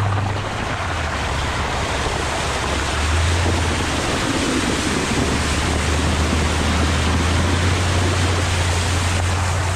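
A truck's front tyre ploughing through floodwater over a gravel road, heard close to the wheel: a loud, continuous rushing splash of spray, with the steady low drone of the 5.7-litre V8 underneath.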